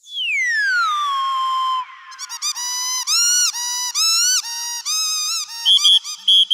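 Squeaky dog toy: one long squeak falling in pitch over nearly two seconds, then a run of short squeaks, several a second, ending with quick high chirps.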